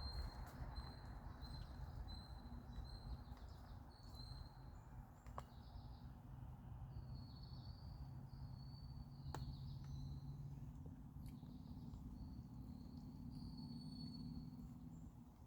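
Small birds chirping in short, high notes repeated over and over, above a steady low rumble, with a couple of sharp clicks partway through.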